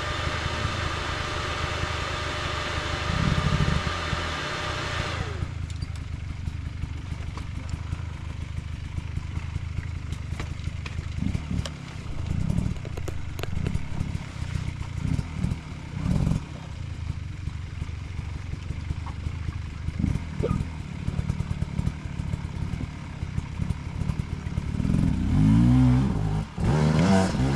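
Enduro dirt bike engines running at idle with uneven throttle blips and clatter. A higher engine note cuts off suddenly about five seconds in, and near the end a bike revs up hard.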